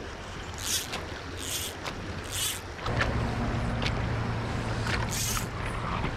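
Fly line swishing in short strokes as it is stripped in by hand, about one stroke a second at first and one more later, over running water. A low steady rumble of wind on the microphone joins about halfway through.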